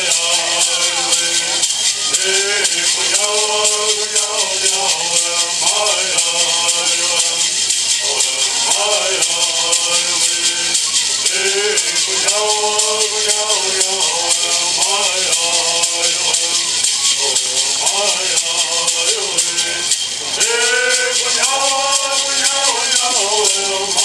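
Men's group singing Hualapai bird songs together, each keeping a steady beat with a shaken gourd rattle. The song runs in repeated phrases, with a short break about twenty seconds in before the next phrase starts.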